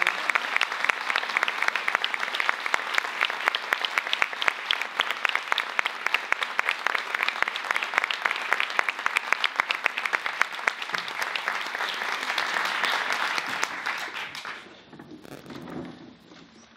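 Audience applauding, many hands clapping steadily, dying away about fourteen and a half seconds in.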